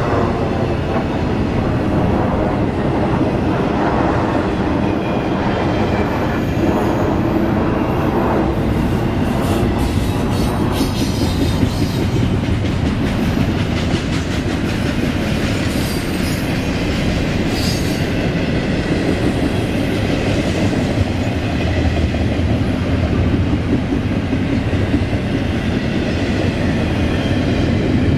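Double-stack intermodal freight cars rolling past: a steady rumble and rattle of steel wheels on rail with clickety-clack over the joints. Brief high-pitched squeals come and go around the middle.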